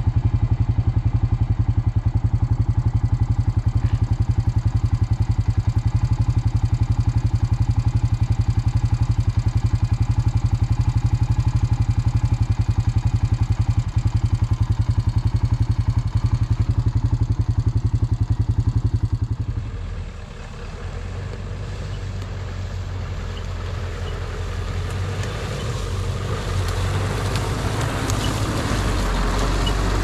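A motor running steadily with a fast, even pulsing. About twenty seconds in it gives way to a quieter, rougher running sound that slowly grows louder.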